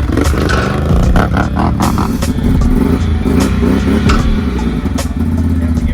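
ATV engine running and being revved as the machine is ridden off a trailer, with several sharp metal clanks.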